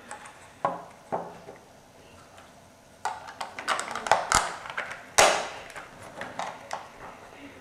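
LEGO plastic bricks being handled and pressed together: two sharp clicks about a second in, then a run of clicking and rattling from about three seconds in, with two louder snaps around the middle.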